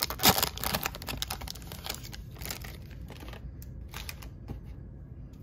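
Foil wrapper of a trading-card pack crinkling and rustling as it is torn open and handled, dense for the first two seconds, then thinning to a few faint rustles.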